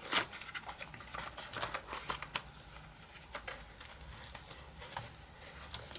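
A small package of spare keycaps being opened by hand: scattered rustling with light clicks and ticks, busiest in the first couple of seconds.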